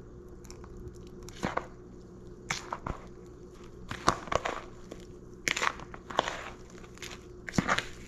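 A fork folding a wet sauce into a bowl of flaked fish meat and breadcrumbs, with short irregular scrapes and taps of the fork against the bowl.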